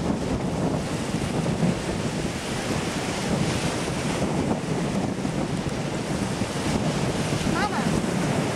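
Wind buffeting the microphone over the steady wash of small surf breaking on a beach, with a brief high call near the end.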